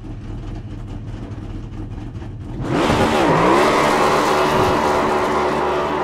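Race car engine running with a steady rumble, then about three seconds in revving hard and loud with a spinning-tire burnout noise.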